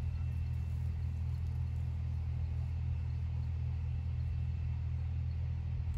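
A steady low mechanical rumble, even and unbroken, with a faint thin high whine above it.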